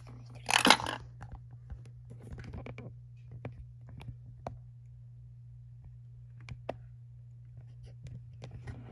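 Plastic toys being handled inside a large toy dinosaur's mouth: scattered clicks and light knocks, with one louder clatter about half a second in, over a steady low hum.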